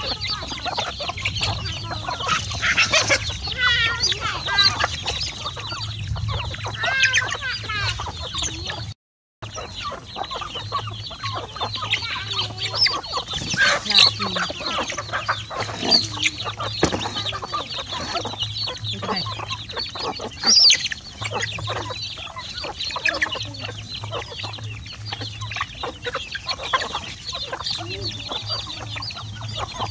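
A flock of chickens, a rooster, hens and chicks, clucking and peeping as they feed, with many short high chirps throughout. The sound drops out briefly about nine seconds in.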